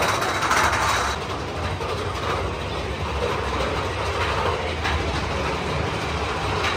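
Big Thunder Mountain Railroad mine-train roller coaster cars running along the track, heard from on board: a steady rumble and rattle with a few sharp knocks.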